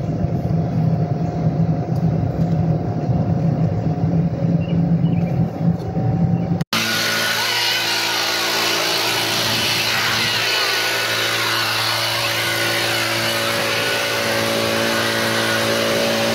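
Electric golf cart (a 2017 Club Car Precedent) being driven, its motor and tyres giving a fluctuating low rumble. About seven seconds in, this cuts off abruptly and a steady hum with several held tones follows.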